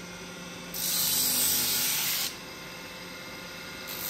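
Rotary sanding disc on a motor spindle running with a steady hum. A wooden knife handle pressed against it gives a loud hissing grind from about a second in, lasting a second and a half, and again starting near the end.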